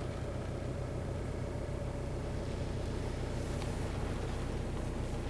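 Steady low drone of a car's engine running, heard from inside the cabin.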